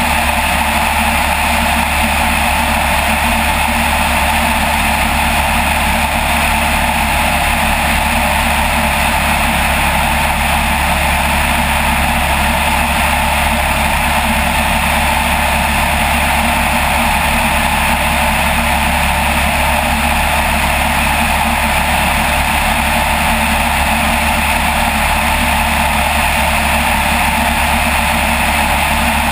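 Light aircraft's piston engine and propeller running steadily in flight, a loud constant drone with no change in pitch.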